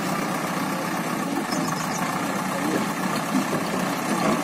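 Diesel engine of a JCB backhoe loader running steadily as the machine tips soil from its raised front bucket into a tractor trolley.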